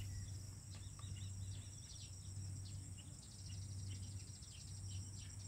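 Faint, steady high-pitched insect trill with a fast pulse, with scattered short chirps over it.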